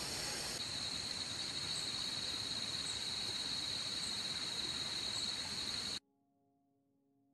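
Insects chirring in a steady, high-pitched drone over a general outdoor hiss, with faint short chirps about once a second. The sound cuts off suddenly about six seconds in.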